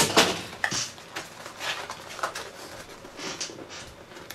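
Handling noise from a cardboard box tray holding a motherboard being turned around by hand: irregular rustling scrapes and light knocks, loudest right at the start.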